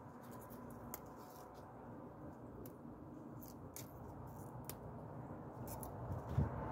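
Hands sorting freshly picked garlic mustard, stripping leaves from the stems: faint rustling with small scattered crisp clicks as stems snap. A single low thump near the end.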